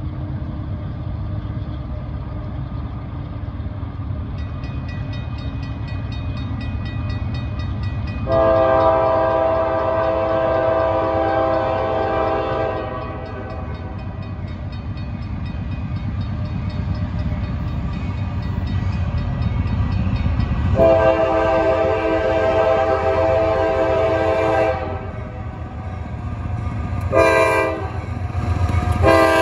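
Approaching Norfolk Southern diesel freight locomotive sounding its air horn in the grade-crossing pattern: two long blasts, a short one, and the start of another long one near the end. A steady low diesel rumble underlies it and grows louder as the train nears.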